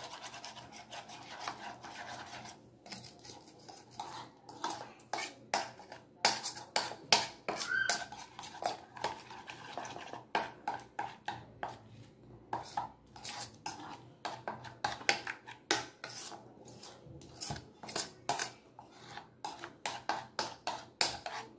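A spoon stirring a thick yogurt and spice marinade in a ceramic bowl: irregular clinks and scrapes of the spoon against the bowl, a few a second.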